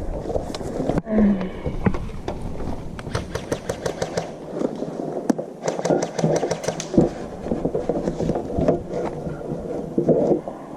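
Airsoft guns firing in two rapid runs of sharp clicks, about seven a second, over rustling movement and handling noise.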